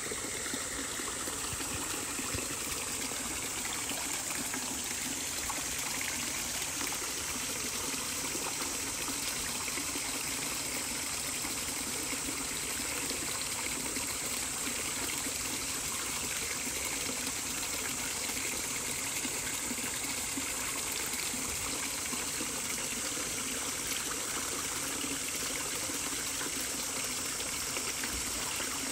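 Water flowing steadily, like a stream running over stones, an even rushing sound that does not change.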